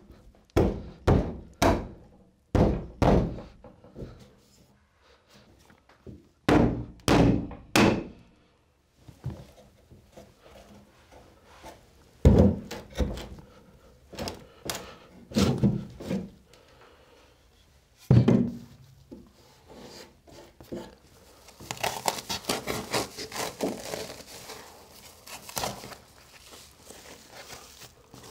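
Heavy knocks of a hammer on pine wall boards, in quick groups of several blows, as a square section of the wall lining is knocked out. Near the end, a long stretch of crinkling and rustling.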